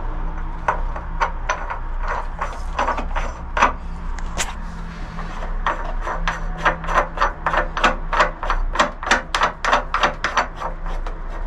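Bronze thru-hull fitting and its nut scraping as the nut is turned down by hand against a wooden backing block, the fitting bedded in sealant. The short strokes come a few at a time at first, then quicken to about three a second from about halfway through.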